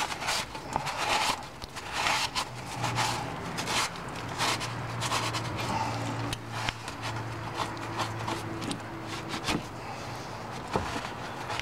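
A cloth rubbing and scraping over a metal car battery tray in repeated irregular wiping strokes, cleaning it out. A steady low hum runs underneath through the middle.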